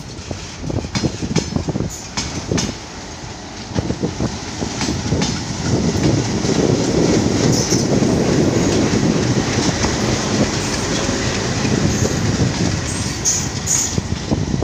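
Twin ALCO diesel locomotives hauling a passenger train approach and pass close by. Their engines get loud from about six seconds in, and the wheels clack over the rails as the coaches follow.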